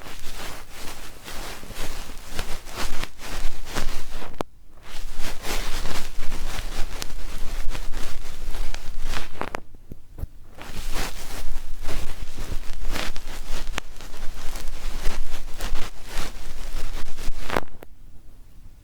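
ASMR ear cleaning: an ear pick scraping and rubbing close against the microphone in rapid, scratchy strokes. There are short pauses about four and a half seconds in and about ten seconds in, and the scratching stops near the end.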